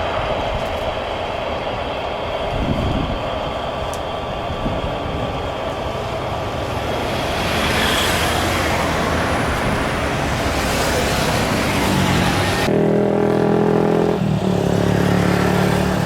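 Jet airliner noise mixed with wind on the microphone, swelling to a louder rushing roar about halfway through. Near the end it changes abruptly to a steady droning engine hum.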